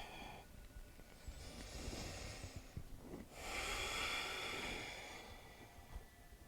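Faint, slow breathing during a held yoga pose: one long breath in, then after a short pause one long breath out, each lasting about two seconds.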